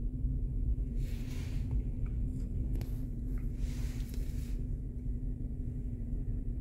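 Steady low hum and rumble with a constant tone, with two soft hissing rustles, one about a second in and one around four seconds in.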